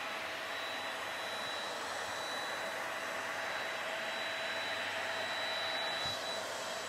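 Bee vacuum running steadily, its corrugated hose sucking bees off the comb: an even rush of air with a thin high whine.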